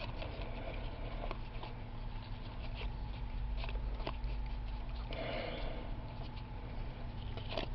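Trading cards flipped through by hand: light flicks and slides of card stock as each card is moved to the back of the stack, over a steady low hum.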